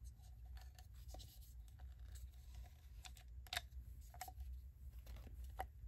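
Faint scraping and small clicks of hard 3D-printed resin parts rubbing against each other as a snapped-in teeth piece is worked out of a figure's mouth, with a few sharper ticks in the second half.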